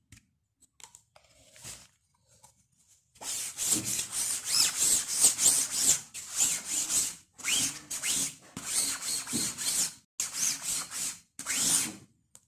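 Black ink being rubbed back and forth through the mesh of a screen-printing screen onto cloth beneath, with a scratchy rubbing sound. The strokes start about three seconds in and come in quick runs with short pauses between them.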